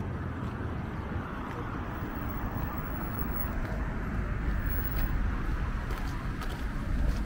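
Steady outdoor street noise: a low rumble of traffic, with a few faint ticks.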